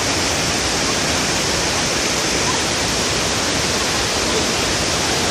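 Steady rush of falling water, an even, unbroken noise.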